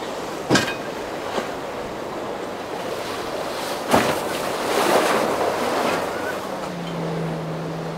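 Waves and boat wake washing through a choppy inlet, with wind on the microphone and a few sharp slaps of water, the loudest about half a second in and about four seconds in. A hiss of spray swells around the middle, and a steady outboard engine drone comes in near the end.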